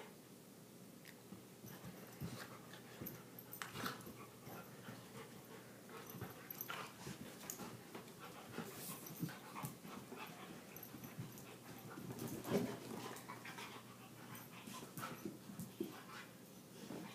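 Two Labradors, a chocolate adult and a black puppy, play-fighting: panting and scuffling, with short sounds here and there, the loudest about twelve seconds in.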